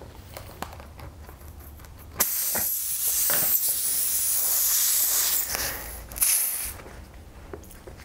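Pressurised air hissing out of a car tyre's puncture around a plug insertion tool for about three and a half seconds, then a second, shorter hiss as the tool is worked out of the hole.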